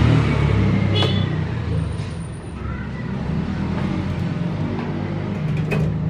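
A low, steady engine rumble, with a few faint short bird chirps and whistles over it in the first few seconds and a light click near the end.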